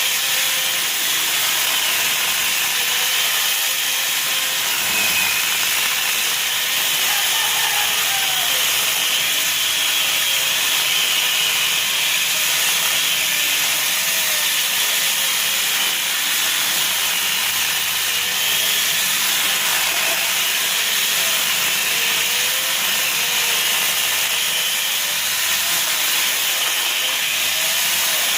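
Corded electric mini chainsaw running steadily while its chain cuts through wood, the motor's high whine wavering up and down as it takes the load.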